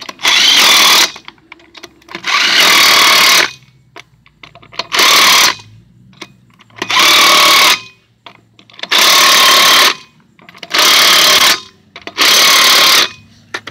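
Cordless impact wrench hammering wheel lug nuts tight: seven loud bursts of about a second each, with short pauses between them.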